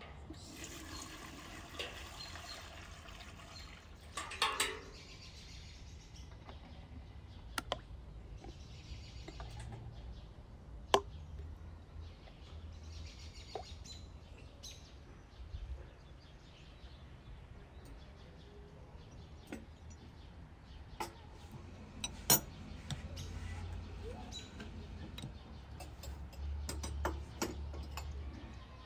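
Water poured from a metal bucket into a large aluminium pot for a few seconds, followed by scattered knocks and clinks of metal cookware, with birds chirping.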